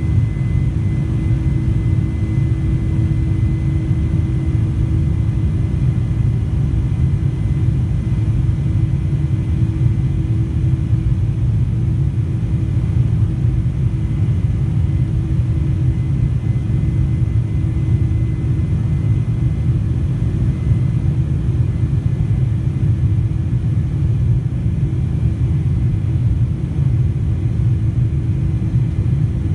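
Airliner cabin noise during the climb after takeoff: a loud, steady, deep rumble with a constant hum running through it. A faint high tone fades out about two-thirds of the way through.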